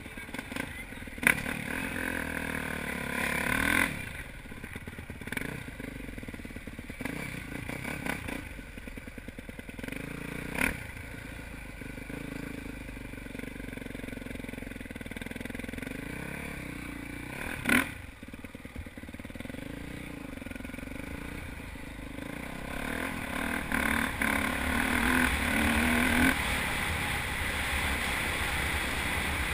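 Dirt bike engine heard from the rider's helmet camera, its pitch rising and falling as the throttle is opened and closed, with a few sharp knocks along the way and wind noise growing louder past the twenty-second mark as speed picks up.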